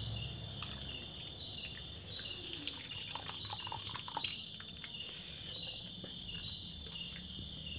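Crickets chirping steadily in the background, with soft splashes and drips of water now and then as shredded pumpkin is squeezed by hand in a bowl of water.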